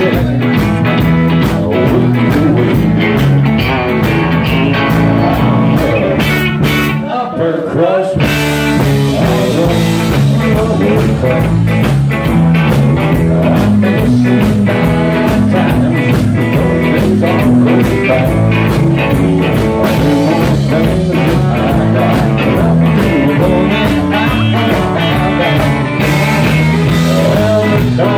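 Live rock band playing loud amplified music: electric guitar over drums and bass. About seven seconds in, the bass and drums drop out for a moment before the full band comes back in.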